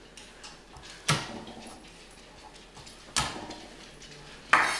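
Chef's knife crushing peeled garlic cloves on a wooden cutting board: three sharp knocks about two seconds apart, the last and loudest near the end.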